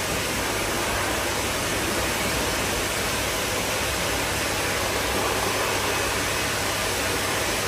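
Pet grooming blow dryer running, a steady rush of air from its hose aimed at a puppy's fur.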